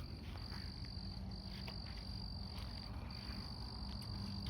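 Cricket trilling in long high-pitched runs broken by short pauses, over a low steady hum and a few faint clicks.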